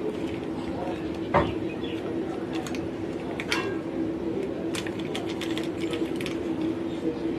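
Small clicks and taps of tools and parts being handled on a workbench, with one louder knock about a second and a half in, over a steady low hum.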